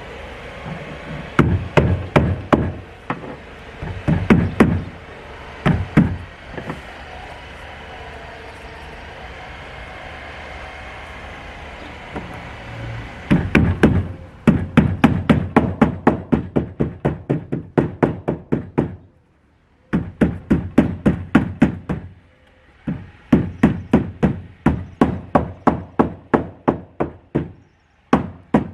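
Repeated hammer blows: a few scattered strikes at first, then long steady runs of about three blows a second with short breaks between them.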